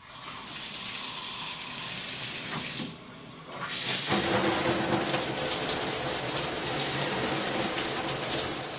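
Water running at first, then from about four seconds in the new Moen Adler shower head spraying steadily, a louder hiss on the tub walls.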